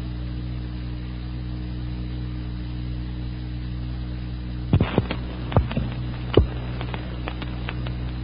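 Steady low electrical hum on an old 1948 radio broadcast recording. A cluster of sharp clicks and pops comes in the second half.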